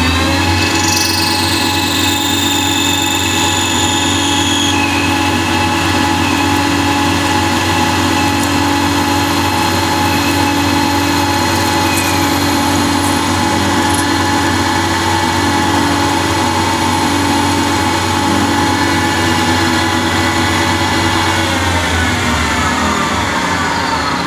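Ganesh CNC lathe spindle running at speed while the parting tool turns the profile on a 3/8-inch aluminium bar: a steady machine whine, rising as the spindle spins up at the start and dropping as it slows near the end. A few high tones fall away over the first few seconds.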